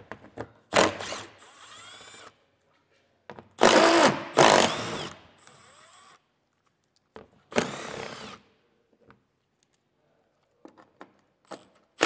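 Small cordless power driver with a socket, backing out 10 mm screws from a car's plastic underbody panel. It runs three short times, about three seconds apart, each run loud at the start and then quieter as the screw spins out.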